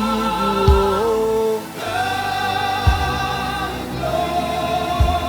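Live worship band playing slowly: sustained keyboard chords that change twice, with bass and a kick-drum thud about every two seconds, under a singer holding a long sung note.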